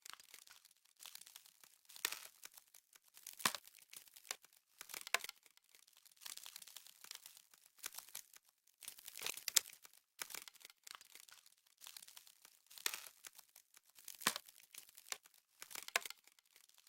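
Crisp crackling and crunching of frost, in irregular clusters every second or two.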